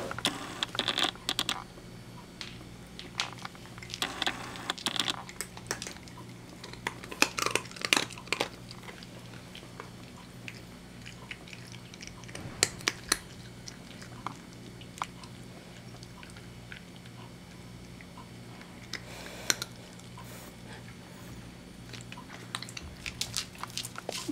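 British Shorthair cat eating small dry chicken treats from a hand, chewing and crunching with irregular crisp crunches in clusters and pauses between.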